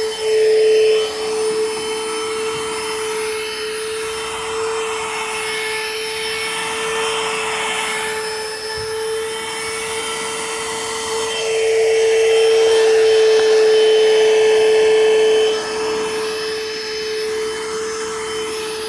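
Panasonic Jet Flow handheld vacuum cleaner running, a steady motor whine over rushing air. It gets louder briefly near the start and again for about four seconds in the middle. By the owner's ear it sounds fine, not bad at all.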